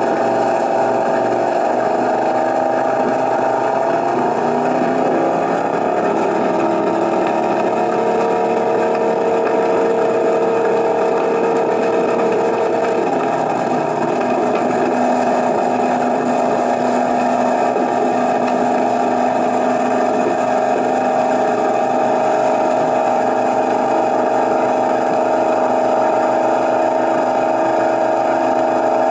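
Inboard engine of a 1955 Chris-Craft Continental runabout running steadily under way, with water rushing along the hull. The engine note shifts slightly about halfway through.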